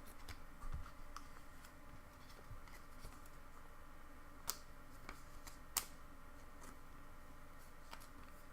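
Pokémon trading cards and packs being handled: a few light clicks and taps, with two sharper clicks around four and a half and nearly six seconds in, over a steady faint hum.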